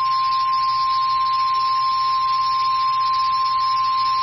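NOAA Weather Radio's 1050 Hz warning alarm tone: one loud, steady single tone held without a break over receiver hiss. It is the attention signal of an Emergency Alert System warning, here a severe thunderstorm warning.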